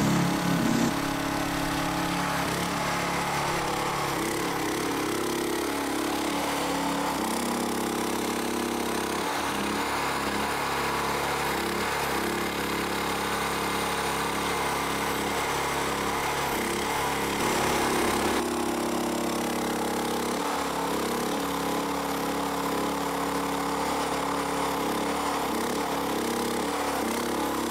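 Small engine of a tracked mini dumper running steadily, its pitch shifting up and down as the hydraulic self-loading bucket is worked to scoop sand into the hopper, briefly louder a little past halfway.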